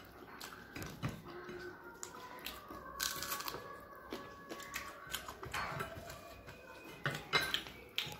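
Close-up eating sounds: mouths smacking and chewing, and fingers mixing rice and curry on plates, giving scattered soft clicks with a few sharper ones about three seconds in and near the end.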